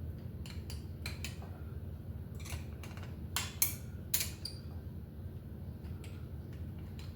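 Scattered light metallic clicks and clinks of a cantilever brake arm, its hardware and hand tools being handled and fitted on a BMX frame, over a steady low hum.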